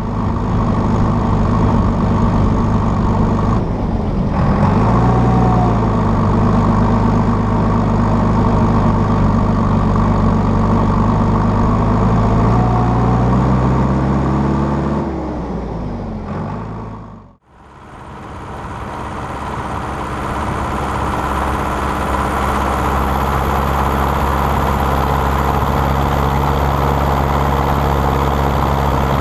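Tractor diesel engine running steadily while driving along a road, its pitch dipping and picking back up a few times. About two-thirds of the way in the sound cuts out abruptly and a second tractor's engine takes over, running at a steady pitch.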